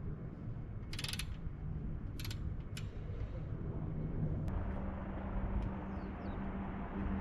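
Short bursts of metallic ratcheting and clicking, a few in the first three seconds, over a steady low hum that grows a little louder about four and a half seconds in.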